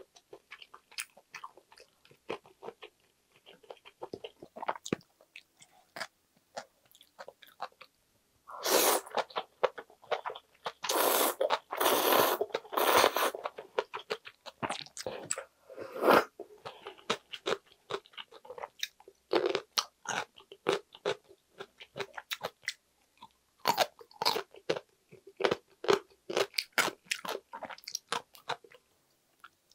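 Close-miked eating: wet chewing with many small mouth clicks. Partway through comes a long, loud slurp of cold jjamppong noodles, followed by shorter slurps.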